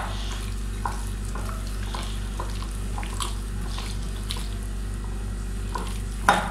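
A hand squishing and kneading raw chicken pieces in a wet egg-and-flour marinade in a bowl, with soft wet squelches and small clicks, and one sharp knock about six seconds in. A steady low hum runs underneath.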